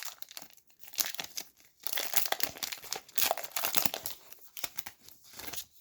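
Plastic wrapper of a trading card pack being crinkled and torn open, in a run of irregular crackles and rips.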